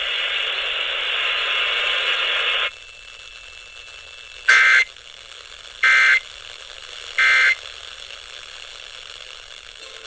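Emergency Alert System end-of-message data bursts through a Midland ER-310 emergency radio's speaker: three short two-tone digital squawks about a second and a half apart, closing the Required Monthly Test. Before them a steady hiss cuts off sharply about two and a half seconds in.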